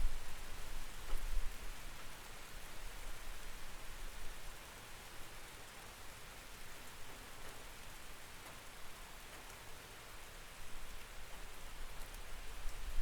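Steady rain heard through a window: an even hiss with faint scattered drop ticks. A low rumble is present in the first few seconds, fades, and returns near the end.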